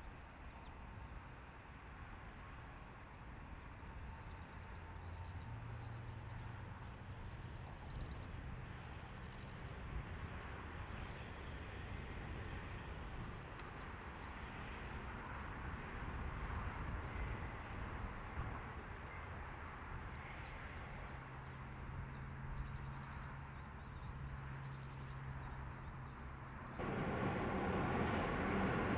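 Diesel multiple unit passing at a distance: a steady low engine drone over the rumble of the train, with faint bird chirps. Near the end the sound jumps abruptly to a louder, broader rumble.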